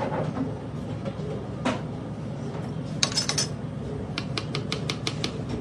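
Kitchen knife chopping a garlic clove on a cutting board: a quick run of evenly spaced taps, about six a second, in the second half, after a few scattered clicks of handling. A steady low hum sits underneath.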